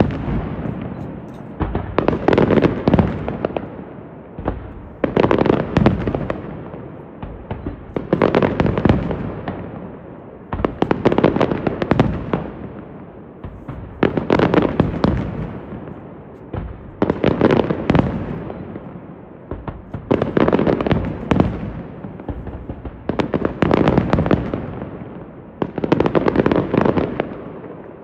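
Aerial fireworks shells bursting in about ten volleys, roughly every three seconds. Each volley is a quick cluster of sharp bangs and cracks followed by a fading echo.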